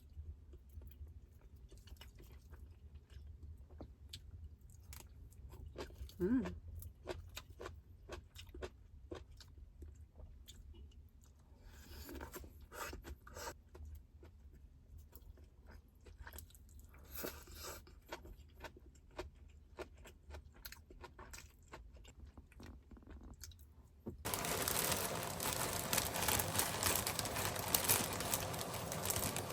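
Close-up chewing and crunching of food, with scattered small clicks and crackles. About three-quarters of the way through, a louder steady hiss starts suddenly.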